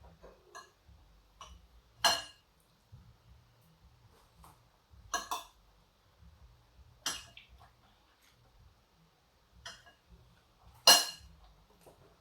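Cutlery clinking against a plate while eating: five separate sharp clinks a second or more apart, the loudest near the end.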